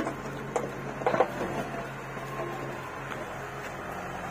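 Diesel engine of a Bull backhoe loader running steadily while it digs, with a few short knocks about half a second and a second in.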